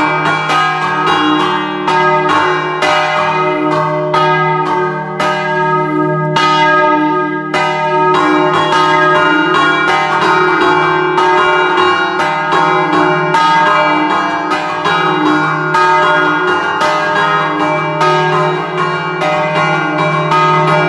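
Three bronze church bells in E-flat cast by De Poli in 1947, hung still and struck in quick rhythmic patterns in the Friulian scampanotata style, several strokes a second over a continuous ring.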